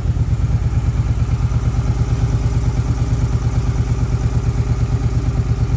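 2008 Suzuki Boulevard C50's V-twin engine idling steadily with a rapid, even pulse, carrying the ticking noise the owner is trying to diagnose.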